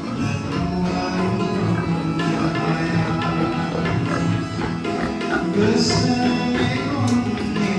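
Background music with plucked strings and percussion.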